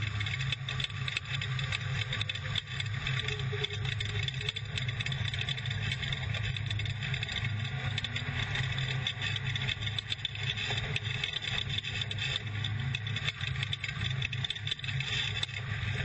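Off-road race truck's engine running steadily at speed, heard from inside the cab, with wind noise and constant rattling and clatter over the dirt course.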